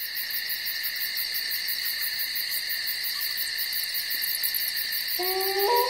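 Night insect chorus, crickets or similar, a steady high-pitched chirring with a fast even pulse in its highest part. About five seconds in, a long held tone with several pitches at once comes in and shifts pitch in steps.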